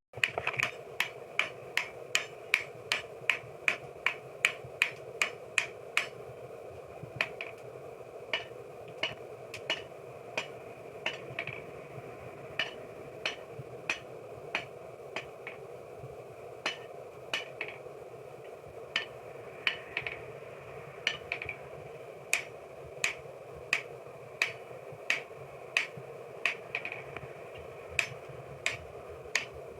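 Blacksmith's hammer striking steel on an anvil, two or three ringing blows a second with a few short pauses between runs, over a steady hum.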